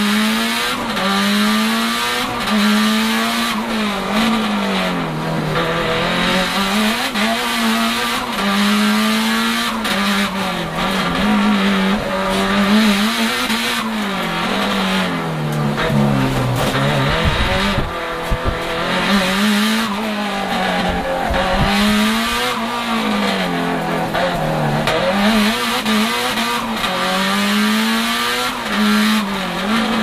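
Turbocharged 2.0-litre four-cylinder engine of a 500 hp Lancia Delta Integrale Evoluzione, heard from inside the cabin, revving hard and dropping again every two to three seconds as it is driven through the gears and corners of a circuit.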